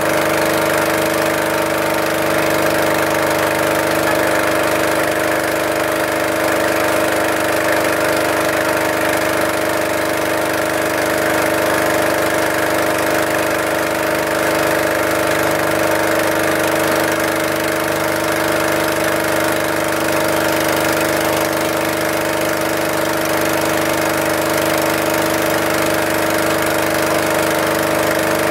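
Engine of a small wooden passenger boat running at a steady cruising speed, heard from on board: a loud, even drone with a constant pitch.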